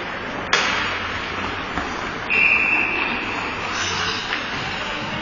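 Hockey referee's whistle blown once, a short high steady blast about two seconds in, signalling a stoppage in play. About half a second in, a single sharp crack of an impact on the ice or boards.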